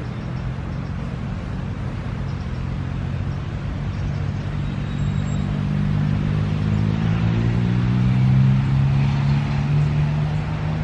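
A motor vehicle's engine running steadily, slowly growing louder and a little higher in pitch over several seconds as it draws near, then easing slightly near the end.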